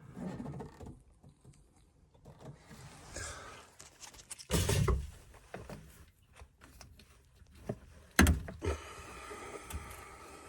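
Knocks and mechanical clatter of hands and tools working on a gas combi boiler while its system pressure is being dropped, with two louder knocks about four and a half and eight seconds in.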